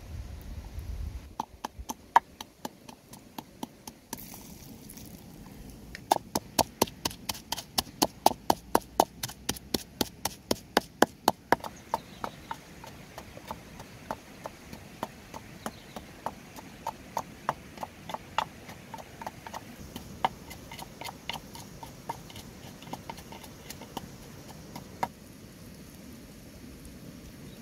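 Wooden pestle pounding red chillies in a wooden mortar: a few scattered knocks, then a quick, even run of knocks about four a second for several seconds, then slower, lighter knocks.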